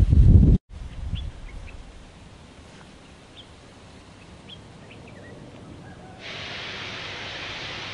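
Wind rumbling on the microphone for half a second, cut off abruptly, then faint bird chirps over quiet ambience. About six seconds in, a steady hiss starts as the South African Railways class 19D steam locomotive blows off steam.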